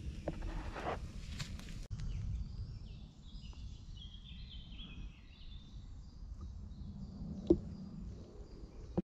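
A wood campfire crackling for about two seconds, then woodland birdsong: a rapid run of high chirping notes over a low rumble, with one sharp snap about seven and a half seconds in.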